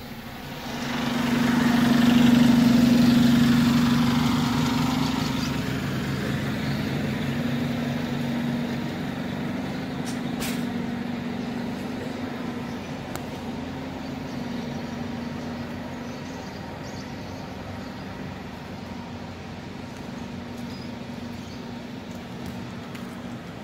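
Diesel engine of a Scania K320IA articulated city bus running close by, swelling up loud about a second in and then slowly easing down to a steady run. A brief click about ten seconds in.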